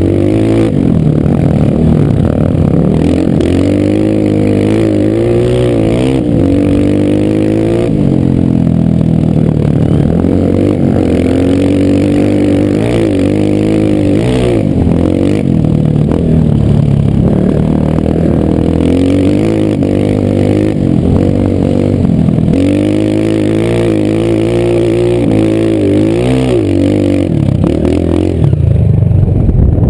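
Single-cylinder four-stroke trail motorcycle engine under way, repeatedly revving up and easing off as the throttle is opened and closed.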